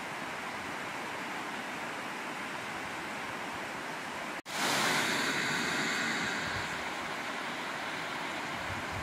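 Steady rushing of water pouring down a concrete dam face into the river current below. About halfway through it drops out for an instant, then comes back louder and hissier for about two seconds before settling.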